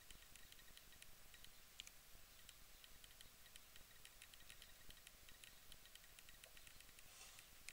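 Near silence: faint room tone with scattered soft, irregular ticks.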